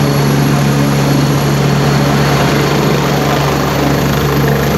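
Helicopter running at close range: a steady, loud rotor and engine noise with a strong low hum. Over it is a high, thin whine that rises slowly in pitch.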